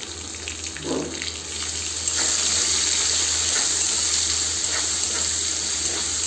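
Wet garlic paste and rice sizzling in hot ghee and mustard oil in a metal kadai, stirred with a metal spatula; the sizzle grows stronger about two seconds in and then holds steady.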